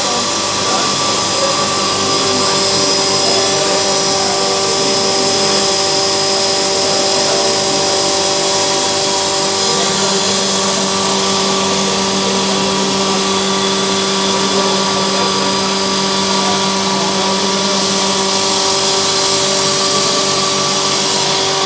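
3 hp electric grain-breaking machine running steadily while it grinds rice grain fed from its hopper: a constant grinding hiss with several steady motor tones held through it.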